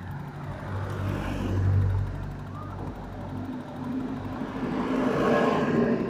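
Street traffic: two vehicles driving past, the first peaking about two seconds in and the second near the end.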